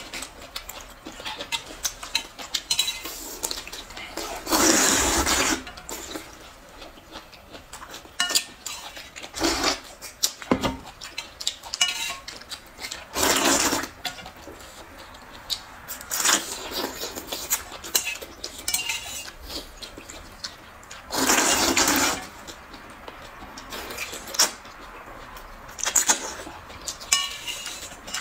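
Noodles being slurped from a bowl of broth: three loud slurps of about a second each, roughly eight seconds apart. Between them, chopsticks click and clink against metal bowls.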